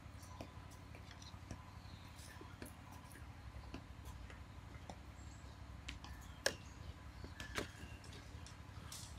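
Metal spoon lightly clinking against a salt jar and a steel mixing bowl: faint scattered ticks, with two sharper clicks about six and a half and seven and a half seconds in.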